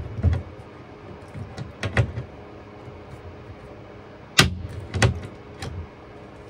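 Hand rivet puller setting blind rivets in plastic cabinet doors: sharp snaps and clicks as its handles are squeezed, with loud snaps at the start, about two seconds in, and twice more around four and a half and five seconds.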